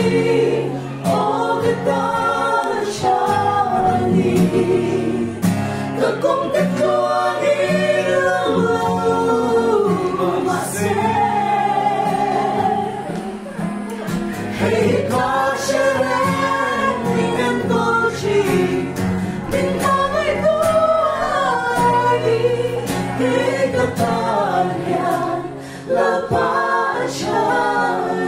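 Men and women singing a gospel song together, with an acoustic guitar accompanying them.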